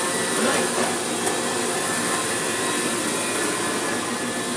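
Automatic car wash equipment running: a loud, steady rushing noise of machinery and water spray with no breaks.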